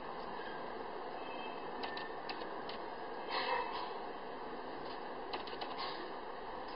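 Playing cards being slid and flipped over on a table: a few light clicks and a brief louder rustle about three and a half seconds in, over a steady hiss.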